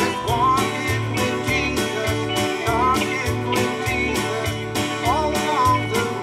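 A live country-gospel band plays a steady beat, with acoustic guitar over bass and drums. A lead melody with sliding notes runs on top of them.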